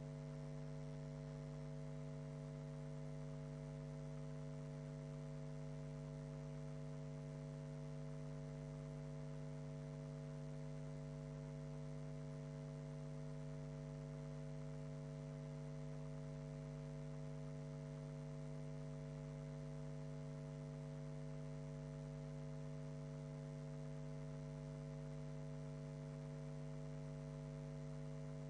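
Steady electrical mains hum, several unchanging tones over a faint hiss, with no voices coming through.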